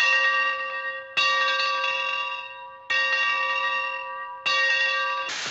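A bell struck three times, about every second and a half, each stroke ringing on and slowly fading, with the ring of an earlier stroke dying away at the start.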